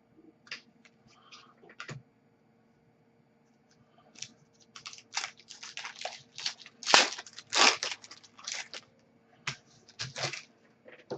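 Crinkling and crackling of hockey card packs and wrappers being handled and opened, with a few scattered crinkles, then a dense run of them in the second half.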